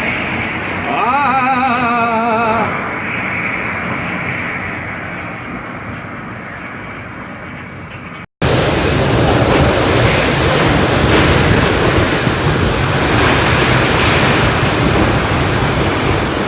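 Storm wind rushing steadily, heard as dense noise, with a brief wavering, warbling tone about a second in. About halfway through the sound cuts off abruptly and comes back louder as a heavier rush of storm wind and rain.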